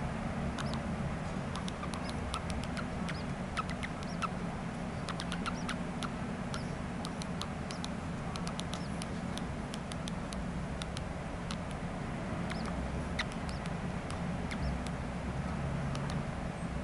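Baby birds begging while being hand-fed: many short, high squeaky chirps in quick, irregular succession over a steady low hum.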